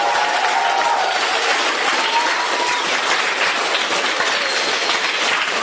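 A roomful of young players and adults applauding steadily, a dense patter of many hands clapping, with a few voices calling out near the start.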